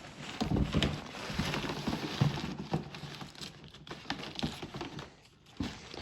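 Rummaging through a storage box of decorations: a dense run of rustling, knocks and light clatter as items are moved, easing off briefly about five seconds in.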